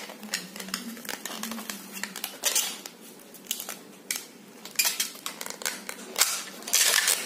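Long latex modelling balloon being squeezed and twisted into bubbles by hand, giving irregular short squeaks and rubs.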